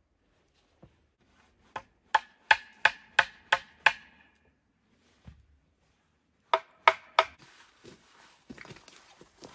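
Quick series of sharp, ringing blows from a hand tool, chopping or hammering at shelter-building work. There are six strikes about a third of a second apart, then after a pause three more, followed by rustling and light knocks near the end.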